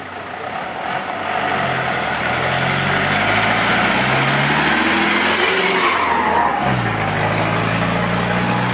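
Minibus engine passing close while accelerating. Its pitch climbs, drops sharply about two-thirds of the way through at a gear change, then climbs again.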